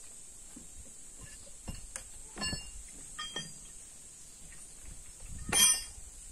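Hammer blows on steel in stone splitting, about four separate strikes, each with a short metallic ring; the last one, near the end, is the loudest.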